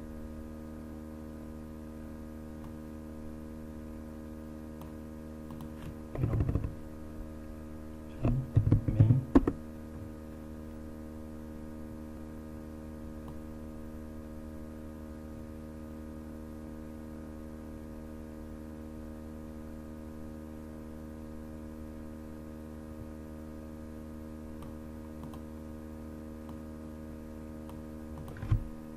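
Computer keyboard typing in two short bursts, about six seconds in and again at about eight to nine seconds, over a steady electrical hum. There is one more short tap near the end.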